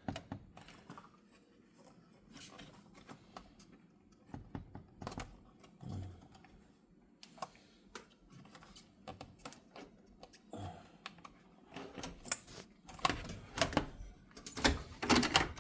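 Irregular clicks and taps of hands working wire plugs off the terminals of an electric range's burner control switch. The clicking grows busier and louder over the last few seconds.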